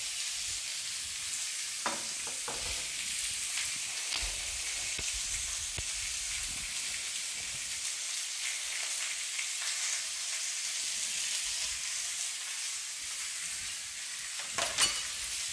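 Cubes of pork belly sizzling steadily in a hot wok as their fat renders out, with a few faint clicks.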